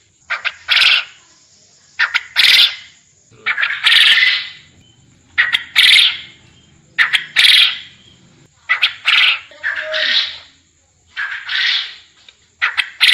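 Quail calling over and over, about every one and a half seconds, each call a short note or two followed by a longer, louder note.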